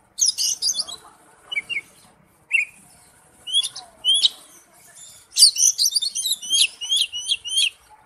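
Songbird singing: separate phrases of short, high chirps and thin whistled notes, then, about halfway through, a quick run of sharp notes repeated several times a second.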